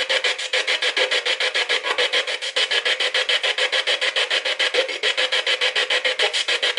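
Spirit box sweeping through radio frequencies: a fast, even chopping of static and broken radio snatches, about eight bursts a second. The operator hears the Dutch words "dat is jou kind" ("that's your child") in it as a spirit's reply.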